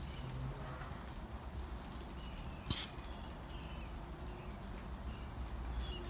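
Flock of small birds giving many short, thin, high-pitched calls over a steady low background rumble, with one sharp click a little before halfway through.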